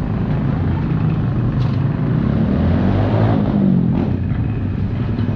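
Street traffic: motor vehicle engines running with a steady low rumble. About three seconds in the noise swells as a vehicle passes close, then fades.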